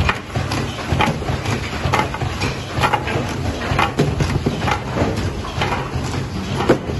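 Pad printing machine cycling, its pad stamping down with a clack about once a second over a steady low machine hum.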